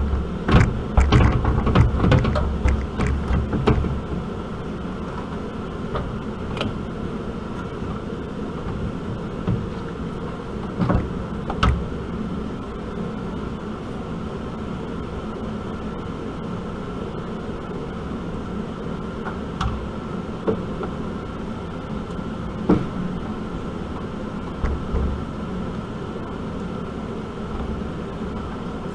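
A radiator being handled and set in place in a pickup's core support: a burst of clunks and rattles in the first few seconds, then a few single knocks, over a steady hum.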